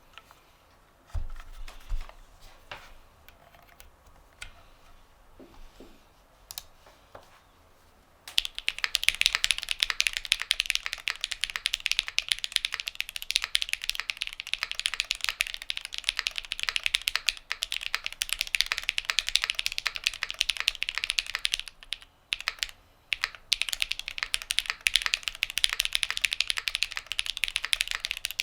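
Midway60 custom mechanical keyboard with lubed Zaku switches, a polycarbonate plate, lubed screw-in stabilizers and GMK keycaps, being typed on. A few scattered key clicks and a couple of soft knocks at first, then fast continuous typing from about eight seconds in, broken by a short pause near the end.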